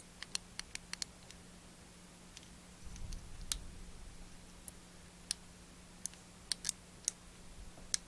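Light, irregular clicks and taps of a small plastic window piece and a diecast model car body being handled and pried at, with a soft rustle of handling about three seconds in.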